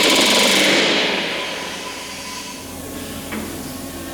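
Pneumatic rivet gun hammering in a short burst of very rapid blows at the start, the noise fading away over the next second or two, followed by a few light taps.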